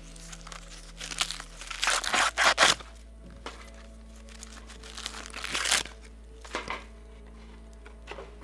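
Crinkling and crackling of a dried rice-flour noodle block and its packaging being handled, in irregular bursts. It is loudest about two to three seconds in and again around five to six seconds in.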